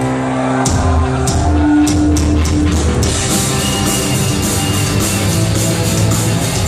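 Rock band playing live: electric guitar, bass and drums, with the bass and drums coming in under sustained guitar tones just under a second in.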